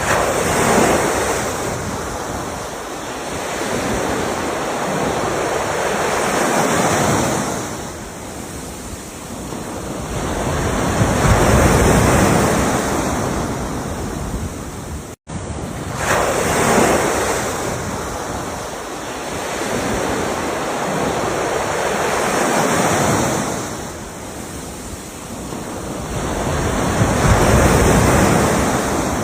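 Ocean waves breaking and washing in, swelling and ebbing about every five and a half seconds. The sound cuts out for an instant about halfway through.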